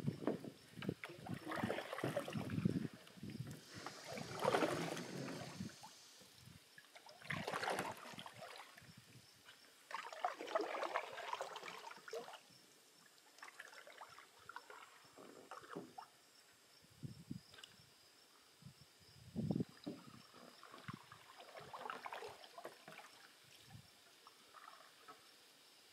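Canoe paddles stroking through calm water: irregular splashes and swirls of the blades, with drips between strokes. Strongest in the first dozen seconds, fainter later on.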